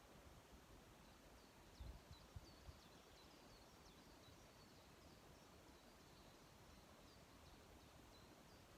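Faint, high, short chirps of small birds, repeated rapidly over a quiet outdoor background, with a few brief low thumps about two seconds in.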